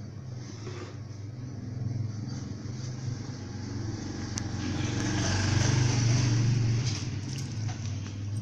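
An engine or motor running with a steady low hum, swelling louder to a peak about five to six seconds in and then easing off.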